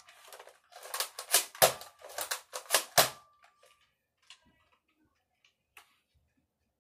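A rapid series of sharp clicks and knocks, about eight in two and a half seconds, then a few faint scattered ticks.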